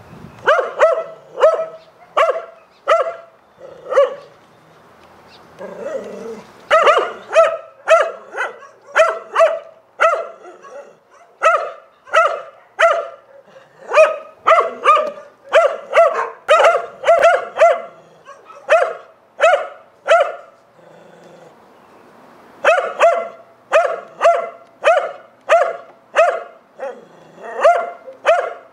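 A dog barking over and over in short, sharp barks, about two a second, pausing briefly twice.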